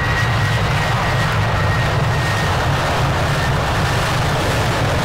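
Boeing 737-800 jet engines (CFM56-7B) running at takeoff power: a loud, steady rumble heavy in the low end, with a faint high whine that fades about halfway through.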